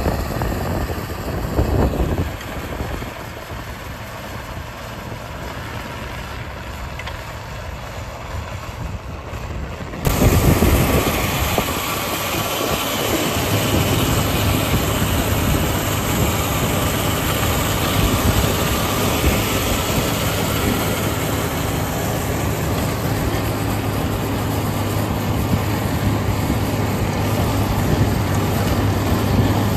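Manure spreader truck running across a field, its diesel engine and spinning rear beaters making a steady mechanical din as it slings manure. It gets suddenly louder about ten seconds in, with a steady low hum underneath from then on.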